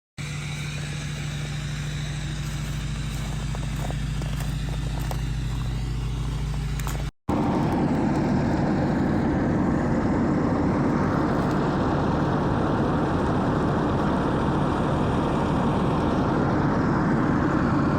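Vehicle engine running steadily, in two stretches split by a brief cut to silence about seven seconds in; the second stretch is louder and rougher.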